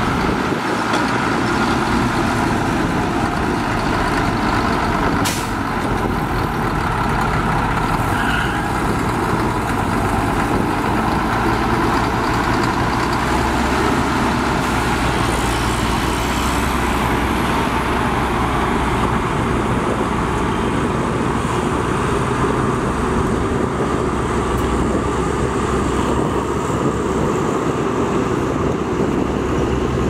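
Dump truck's diesel engine running steadily, with a single sharp click about five seconds in.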